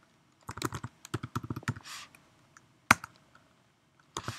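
Computer keyboard typing: a quick run of keystrokes, then one louder, isolated keystroke just before three seconds in as the command is entered with the Enter key. Typing starts again near the end.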